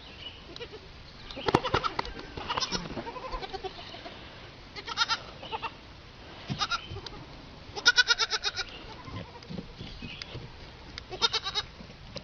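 Young animals calling over and over: about six short pitched calls, each with a rapid quaver, spread across the stretch, the longest and loudest near the middle.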